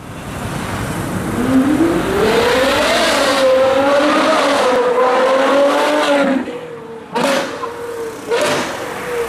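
Ferrari 812 Superfast's V12 engine revving hard as the car accelerates: the note climbs steeply, holds high and steady, then drops off, with two short sharp cracks near the end.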